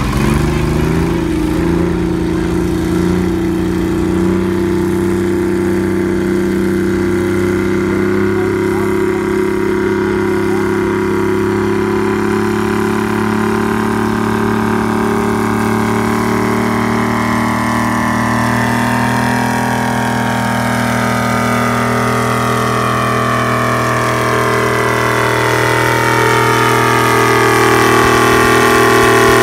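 Vintage farm tractor engine running under load as it pulls a weight-transfer sled, at a steady low pitch. It grows louder as it nears and is loudest near the end.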